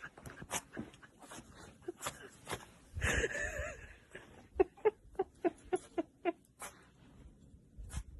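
An animal giving a brief wavering cry about three seconds in, then a quick run of about seven short yelps, among scattered small clicks.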